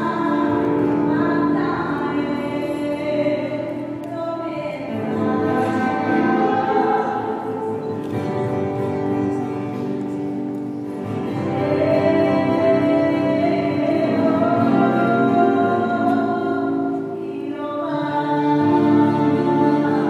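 Girls singing a song together into microphones, accompanied by two acoustic guitars, in held notes with short breaks between phrases.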